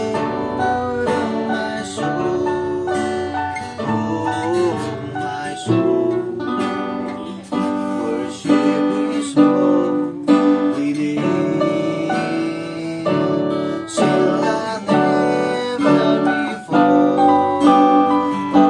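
A Techno T9690i portable keyboard and a 40-inch acoustic-electric guitar playing a melody together, with sustained keyboard notes over the guitar.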